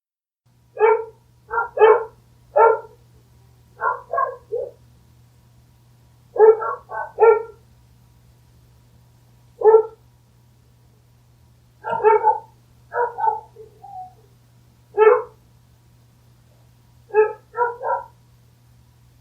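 A single dog barking repeatedly: short barks in irregular bursts of one to three, with gaps of one to two seconds between bursts, over a faint steady low hum.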